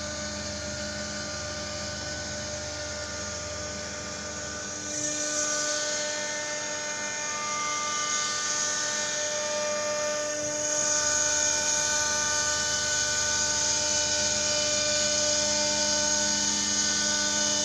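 CNC cutting machine running, a steady whine of several tones over a hiss; it grows louder about five seconds in and again about eleven seconds in.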